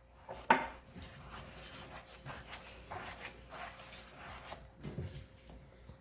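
A spoon stirring wet bannock dough in a bowl, soft and irregular, with one short sharp sound about half a second in.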